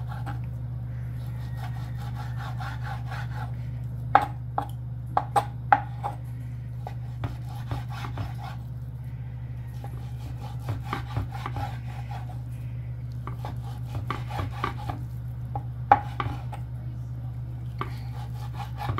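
Chef's knife slicing raw bacon on a wooden cutting board: irregular sharp knocks of the blade on the wood, with sawing, rubbing strokes between them. A steady low hum runs underneath.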